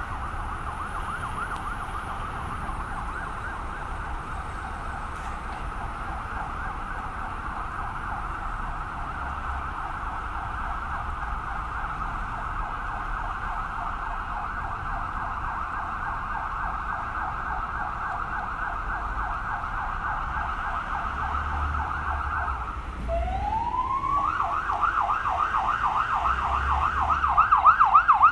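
Fire engine siren on a fast yelp, rapid rising sweeps several times a second. About 23 seconds in it breaks off and winds back up, then yelps again, growing louder as the engine draws close. A low traffic rumble runs underneath.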